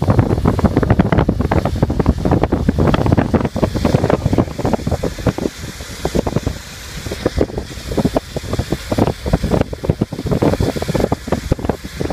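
Wind buffeting the microphone in uneven gusts, easing a little about halfway through.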